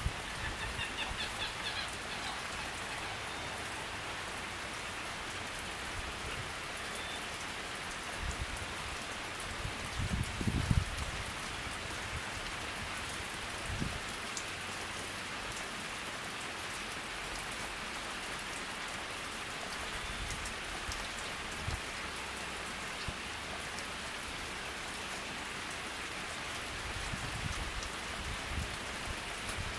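Steady rain falling on a lake and the trees around it, an even hiss with no letup. A brief low rumble comes about ten seconds in.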